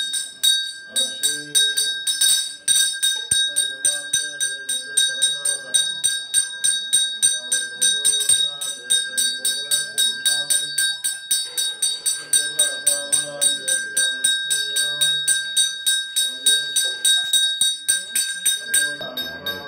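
Temple hand bell rung rapidly and steadily, about five strokes a second, as for the puja offering to the deity, with voices faintly beneath it.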